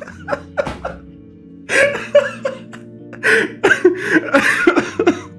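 A man laughing hard in three bouts, the last and longest near the end, over steady background music.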